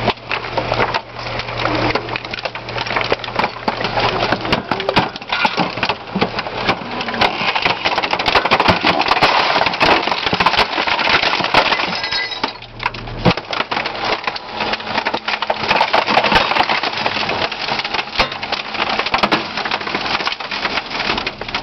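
Garbage truck compactor crushing a microwave oven: dense crackling and snapping of breaking plastic, metal and glass. The truck's hydraulics drone steadily underneath, changing pitch about halfway through.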